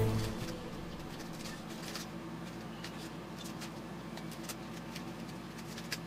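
Background music cuts off at the start, leaving a faint steady low hum and scattered light clicks and rustles of the foam shield layers being handled and pressed together.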